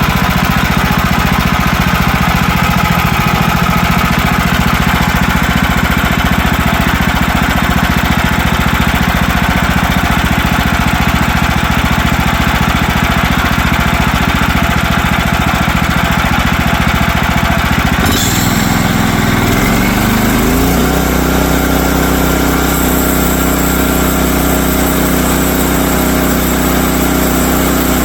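Small gasoline engine on a portable bandsaw sawmill running hard. About eighteen seconds in the sound changes abruptly, and the engine settles into a steadier, smoother idle.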